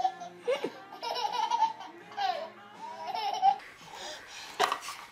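A baby laughing in a run of short giggling bursts, then a single sharp knock near the end.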